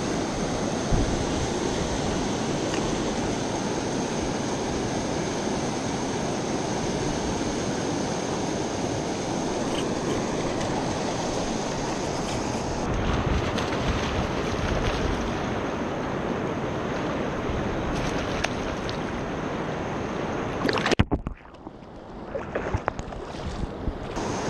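Water pouring over a barrage into white-water rapids: a steady, loud rush that briefly drops away near the end.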